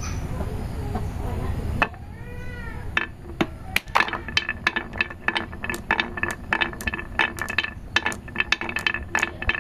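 Marbles rolling down a carved wooden track and clicking against each other as they pile up in a hollow, a rapid run of sharp clicks at about four a second that starts about three seconds in.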